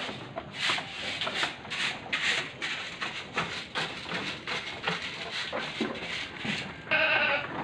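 Repeated short scraping, rubbing strokes, a few a second, in a wooden goat shed. Near the end a Sapera goat bleats once.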